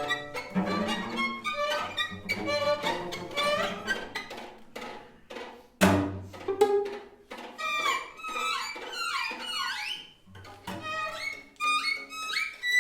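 String quartet playing a contemporary piece in short, clipped bowed notes. About six seconds in comes a sharp, loud attack, followed by sliding, swooping pitches in the high strings.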